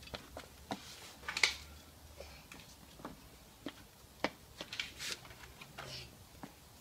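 Quiet, scattered light taps, clicks and scuffs, one somewhat louder about one and a half seconds in: a small child's shoes stepping on patio tiles and rubber bicycle tyres being handled.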